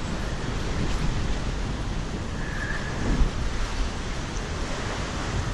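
Steady rushing noise of wind buffeting the microphone over moving water, with a low rumble throughout.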